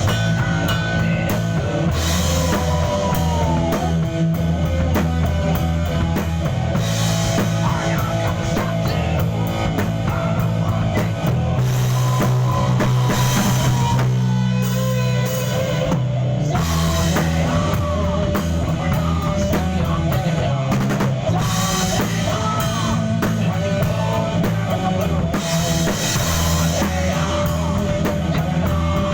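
A rock band playing a song live: drum kit, a bass line that moves from note to note, and guitar carrying the melody.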